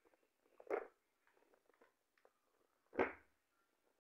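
Handling noise from a paperboard product box turned over in one hand: a short scuff about a second in and a louder one near three seconds, with faint rustling between.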